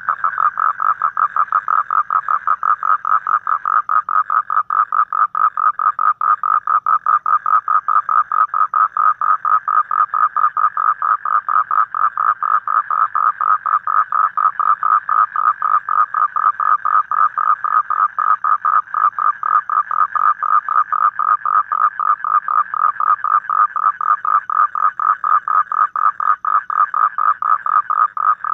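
Asian common toad calling: a long, unbroken trill of rapid, evenly spaced pulses, steady in pitch and pace.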